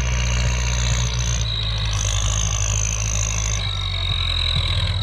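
Kubota tractor's diesel engine running steadily, with a thin high-pitched whine above it that drops in pitch about three and a half seconds in.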